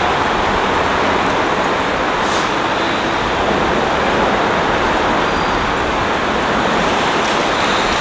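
Steady road traffic noise: an even, continuous rush of vehicles with no single engine note standing out, and a brief high hiss about two seconds in.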